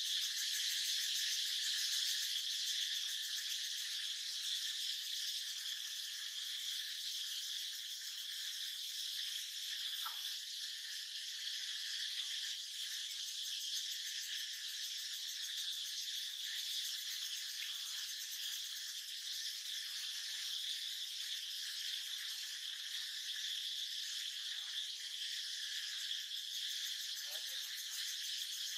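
Steady, high-pitched chorus of forest insects, an unbroken shrill drone.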